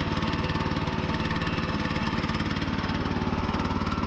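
Small gasoline engine of a Woodland Mills HM122 portable sawmill running steadily.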